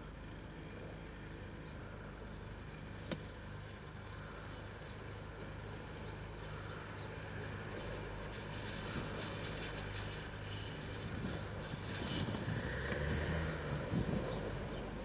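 Child's small motorbike engine running at a distance over a steady low tape hum, getting louder in the second half as the bike comes back toward the camera. A single click about three seconds in.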